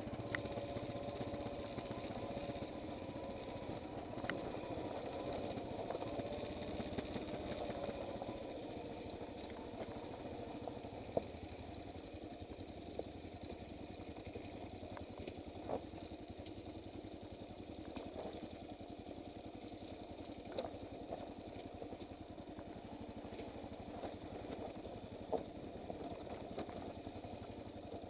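Motorcycle engine running while descending a rough, rocky dirt track, heard through a helmet-mounted microphone with wind noise. There are a few sharp knocks from the bike over stones, and the engine note eases a little after about nine seconds.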